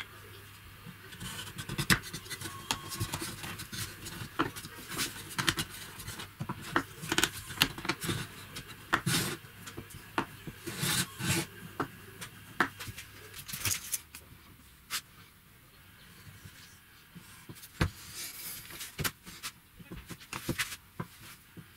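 Clicks and knocks of a metal rod handled against a small wooden box, with short bursts of rubbing on the wood.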